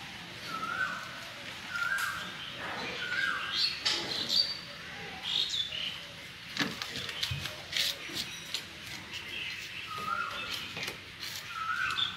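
Birds chirping, with short calls repeated every second or so and some higher-pitched ones among them, and a couple of sharp clicks around the middle.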